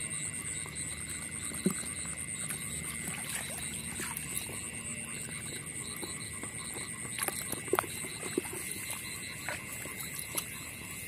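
A steady chorus of frogs calling from waterlogged ground after heavy rain, with a few short splashes and rustles as a hand feels through shallow water among grass stems.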